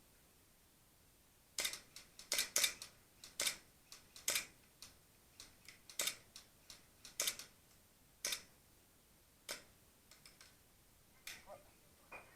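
A run of sharp, irregular clicks and snaps, about two dozen, starting about a second and a half in and thinning out toward the end.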